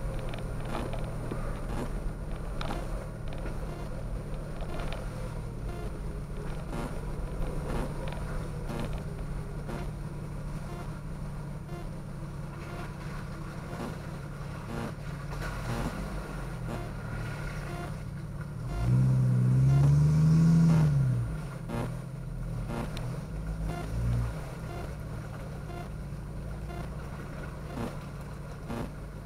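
Jeep engine running low and steady at crawling speed over a rocky trail, with scattered knocks and clunks. About two-thirds of the way in it revs up briefly, the pitch rising and then falling, and there is a smaller rev a few seconds later as the Jeep pushes through a shallow creek crossing.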